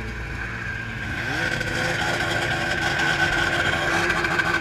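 Several snowmobile engines running together; about a second in one revs up, its pitch rising and then holding high, and the overall sound grows louder.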